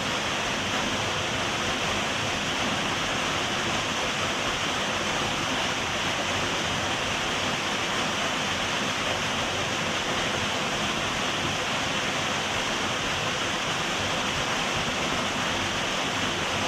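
A small waterfall and its stream: water rushing in a steady, unbroken roar with no change in level.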